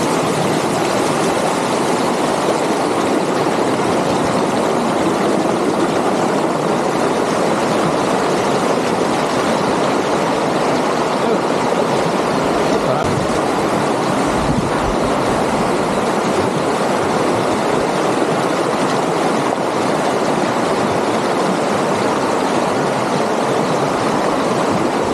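River water flowing over stones, a steady even rushing.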